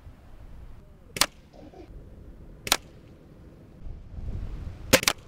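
Crosman Inferno .22 spring-powered break-barrel air rifle firing: short sharp reports about a second in, again near the three-second mark, and a close double crack near the end.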